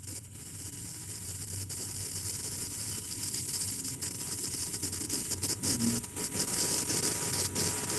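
Pen scratching as someone writes, in many short strokes, over a steady low room hum.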